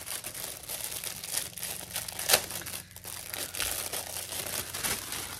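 Crinkly packaging being handled and torn: continuous crackling and rustling with one sharper crack a little past halfway.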